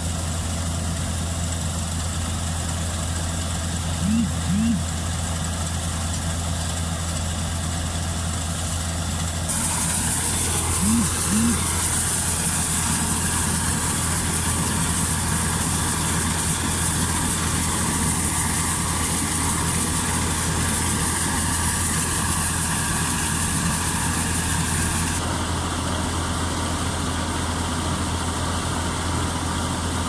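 Steady low hum of an old combine harvester's diesel engine running while its unloading auger empties threshed rice. The sound shifts abruptly about a third of the way in, with more hiss, and shifts back near the end. Twice, a quick pair of short rising squeaks sounds over the engine.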